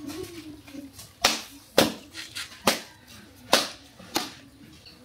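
A hammer striking a tough, mature coconut's shell to crack it open: five sharp knocks, irregularly spaced a little under a second apart.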